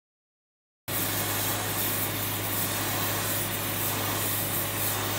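A steady hiss over a low, steady hum, cutting in abruptly about a second in and holding level.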